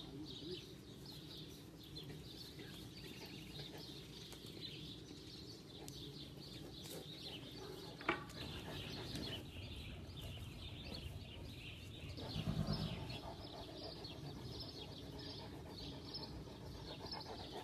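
Birds chirping and calling over and over in a steady outdoor background, with a sharp knock about eight seconds in and a brief low rumble around twelve seconds.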